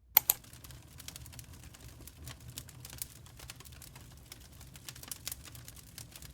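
Birch firewood burning, with irregular crackles and pops over a steady low rumble; one sharp pop just after the start.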